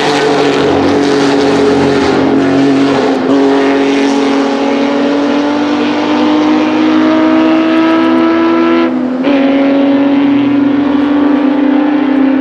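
Porsche 906 Carrera 6's two-litre air-cooled flat-six racing engine accelerating, its pitch climbing steadily through the gears. There are two quick upshifts, about three seconds in and about nine seconds in, each a short break and drop in pitch before the climb starts again.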